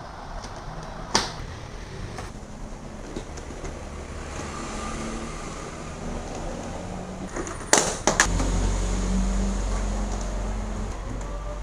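Hard plastic cabinet parts being handled: a sharp clack about a second in, then three quick clacks near eight seconds. A low steady rumble follows the clacks for about three seconds.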